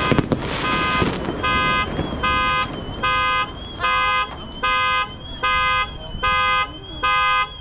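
Vehicle alarm sounding a repeating beep of one fixed pitch, a little more than one beep a second, with a fainter warbling tone running above it. The last fireworks crackle dies away in the first half-second.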